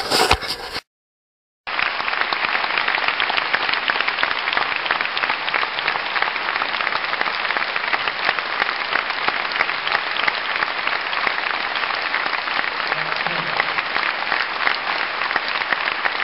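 A crowd applauding steadily, many hands clapping at once. It starts about two seconds in, after a short knock and a moment of silence.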